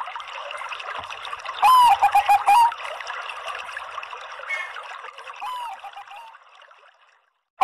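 Zebra dove (Bangkok-bred perkutut) cooing. About two seconds in comes one loud call, a high note that drops into a quick run of short lower coos, and a fainter short call follows around the middle. A steady hissing background runs under it and fades out near the end.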